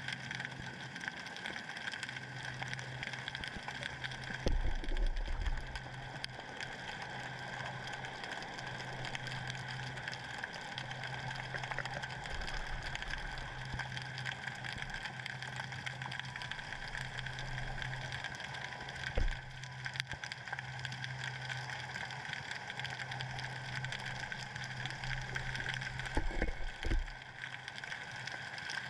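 Underwater ambience picked up by a submerged camera: a steady hiss with a low hum that keeps cutting in and out. A few dull low thumps come a few seconds in, near the middle and near the end.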